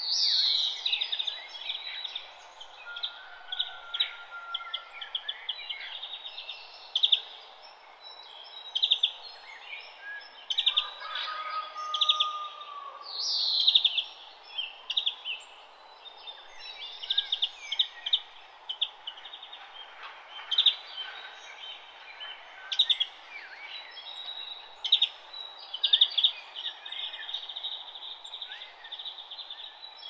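Forest birds singing and calling: many quick chirps and trills, with two loud falling whistles, about a second apart from the start and again near the middle, over a steady background hiss.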